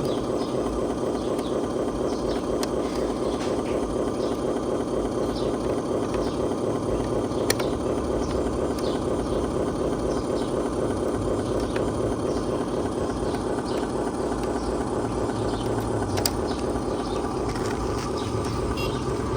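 Electric motors and plastic gearboxes of radio-controlled model trucks running: a steady whir with a few sharp clicks.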